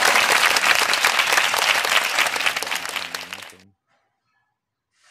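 Crowd applause, dense clapping with some cheering voices, much louder than the room; it dies away and stops about three and a half seconds in.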